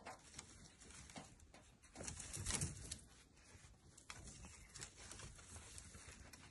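Faint rustling with light crackles and clicks, loudest about two to three seconds in.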